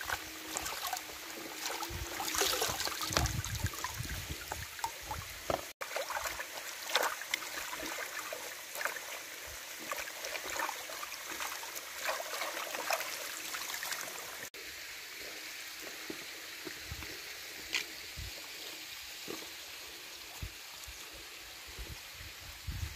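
Shallow river water splashing and dripping as hands rinse food over a plastic basin and wash a banana leaf in it. About fifteen seconds in, the splashes give way to a quieter, steady water sound.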